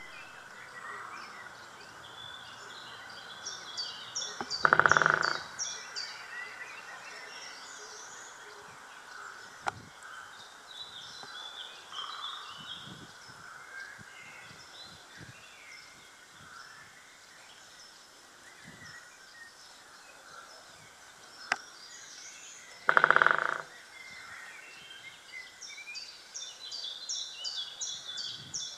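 Woodpecker drumming on a beech trunk, picked up loud and piercing through the wood of the tree it is hammering: two fast rolls of about a second each, far apart, with a couple of single sharp knocks in between.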